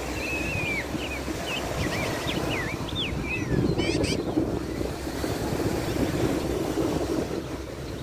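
Surf and wind rumbling steadily, with a bird whistling a quick run of short rising and falling notes over the first three seconds, and a brief tick about four seconds in.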